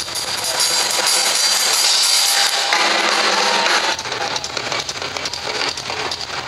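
DW drum kit played live in a drum solo: dense, cymbal-heavy playing for about four seconds, then a quicker run of separate drum strokes with kick drum underneath.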